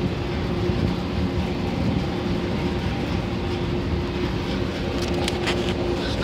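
Commercial laundry machines running: a steady low mechanical rumble with a constant hum, and a few light clicks about five seconds in.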